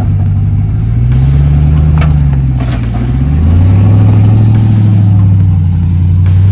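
Ram TRX's supercharged 6.2-litre V8 working the truck up a steep off-road climb. The engine note rises about a second in, dips around three seconds, then comes back up and holds, with a few sharp knocks in the middle.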